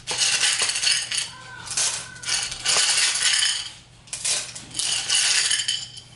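Small hard pieces clattering in a bowl as a hand works through them, in four bursts about a second long each.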